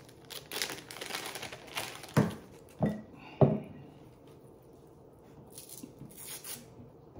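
Thin plastic packaging bag crinkling and rustling as it is handled and opened. A little over two seconds in come three short, loud sounds about half a second apart, and more crinkling comes near the end.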